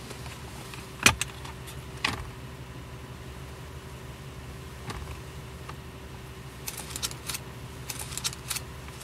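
A car's glove compartment latch clicks open about a second in, with a second knock a second later as the lid drops open. Near the end come a run of small metallic clinks as the contents are rummaged through, over the steady hum of the car's interior.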